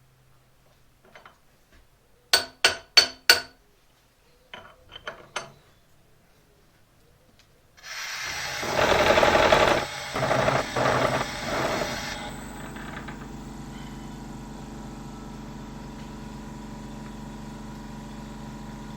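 Four sharp knocks in quick succession, then a few lighter ones. About eight seconds in, a Bridgeport milling machine starts up: a loud, rough noise for a few seconds that settles into a steady running hum.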